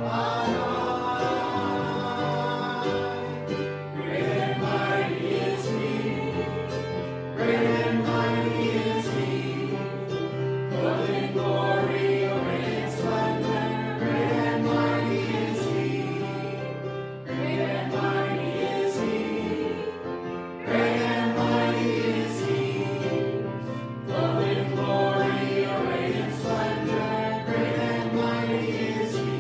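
Church worship music: voices singing a worship song together over instrumental accompaniment with long sustained bass notes, phrase after phrase.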